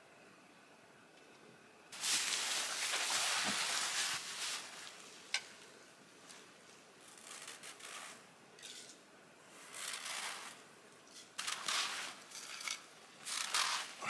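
Hands scraping and scooping granular snow off a sandstone boulder into a wooden bowl: a loud gritty scrape starting about two seconds in, then a string of shorter scrapes and crunches with one sharp click.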